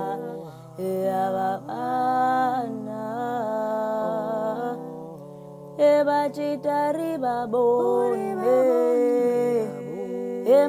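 A single woman's voice, multitracked into four-part a cappella harmony, sings a Xhosa gwijo song. The parts hold chords over a low sustained bass note and move to new chords every second or two. The voices grow louder and busier from about six seconds in.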